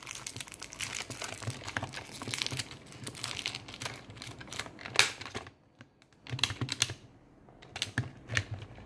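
Small, quick plastic clicks, taps and rattles as a hard plastic toy capsule is handled and its parts are fitted together, with one louder snap about five seconds in.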